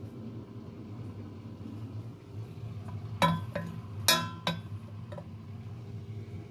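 Wooden spoon knocking against a stainless steel cooking pot, the pot ringing: a few sharp clinks between about three and five seconds in, over a steady low hum.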